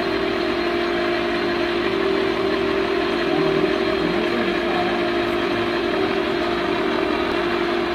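LeBlond engine lathe running steadily with its chuck spinning: an even mechanical hum with a strong steady tone.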